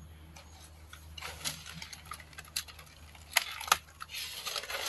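Scattered light ticks and rustles on the pond bank, with two sharp clicks about three and a half seconds in. Near the end comes a swell of splashing water as a hooked fish is hauled from the pond.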